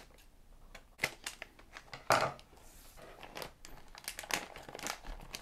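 Scissors cutting through a plastic snack pouch: a few sharp snips about one and two seconds in, the second the loudest. Then the plastic crinkles as the pouch is pulled open by hand.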